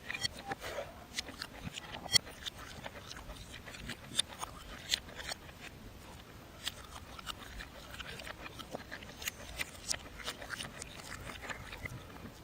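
Close-miked mukbang eating sounds played backwards: chewing, crunching and mouth clicks, heard as many irregular sharp clicks with a few louder snaps.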